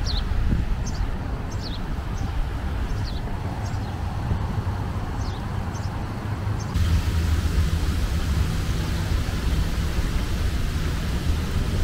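Outdoor ambience: a steady low rumble, with short, high, falling chirps scattered through the first half. About seven seconds in, a louder steady hiss sets in and the rumble grows.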